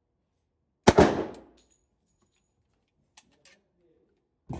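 A single .45 ACP pistol shot about a second in, muffled, with a short echoing tail. Two faint clicks follow a couple of seconds later.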